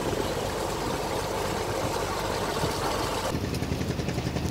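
A boat's engine running steadily, a low hum under a haze of water and wind noise; about three seconds in the hiss drops away and the hum goes on with a slight regular pulsing.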